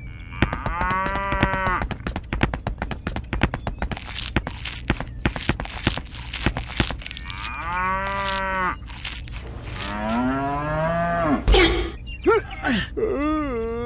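Cows mooing: several drawn-out moos, one rising in pitch, with rapid runs of sharp clicks and knocks between them and a heavy thump shortly before the last moo.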